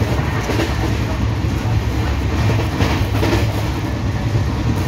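LHB passenger coach running at speed, heard from on board: a steady low rumble of wheels on rail with a few short knocks from the wheels, the thumping of flat wheels.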